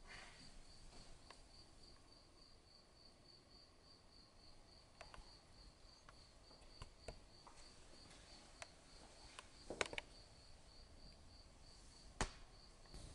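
Near silence: room tone, with a faint high-pitched pulsing tone about three times a second and a few faint clicks.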